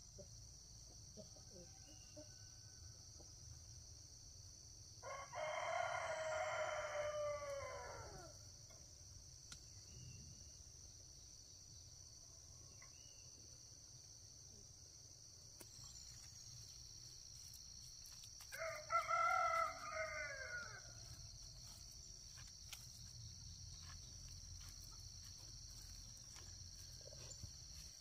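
A rooster crowing twice: a long crow about five seconds in, then a shorter one about thirteen seconds later, each dropping in pitch at its end. A steady high-pitched insect buzz runs underneath.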